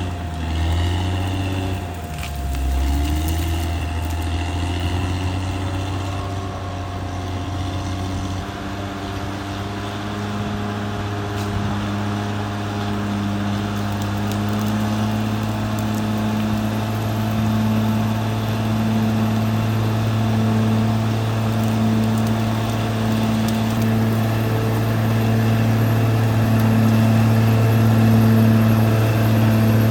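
Caterpillar D6R XL bulldozer's diesel engine running under load. Its note shifts and dips over the first few seconds, then settles into a steady drone with a regular throb.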